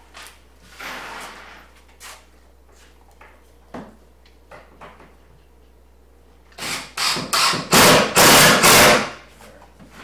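A power drill/driver driving screws into wood, in a run of several short loud bursts about seven seconds in, after a few light knocks and clicks.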